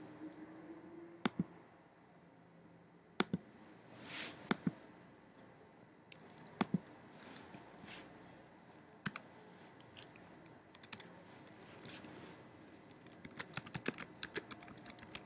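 Computer keyboard and mouse clicks: scattered single clicks, then a quick run of keystrokes near the end as a word is typed.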